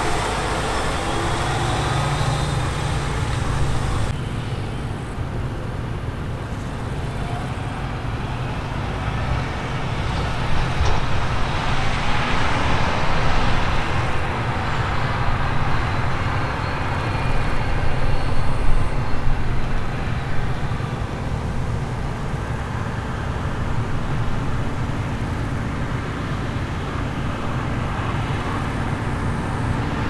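Diesel engines of a Claas tractor hauling a tipper trailer and of Claas Lexion combine harvesters running under load while harvesting barley: a steady low engine drone. The sound changes about four seconds in.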